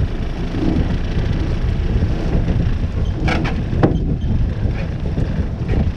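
Wind rumbling steadily on the microphone aboard a small fishing boat, with two brief knocks a little past the middle.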